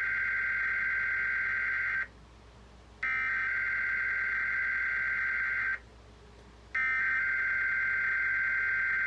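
Emergency Alert System SAME header: three long bursts of shrill digital data tones, each about two and a half seconds long and separated by about a second of pause, announcing a Required Weekly Test.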